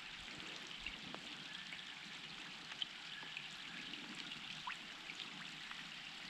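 Faint water sounds on a lake around a kayak: a soft steady wash with scattered small drips and ticks.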